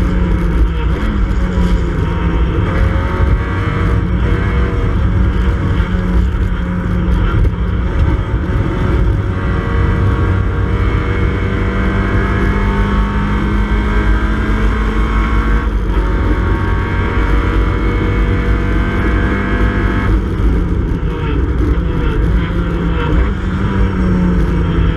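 Classic Mini Cooper S race car's four-cylinder engine running hard under racing load, heard from inside the cabin, its pitch gliding up and down with the throttle and breaking off sharply about 16 seconds in.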